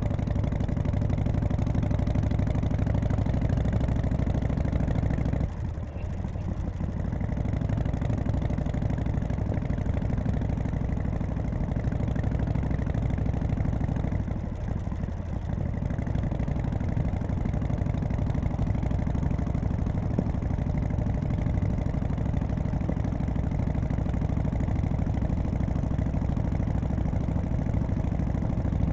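Harley-Davidson Softail FXSTC's 1340 cc Evolution V-twin running steadily, with two brief drops in level, about five and a half seconds in and again near fifteen seconds.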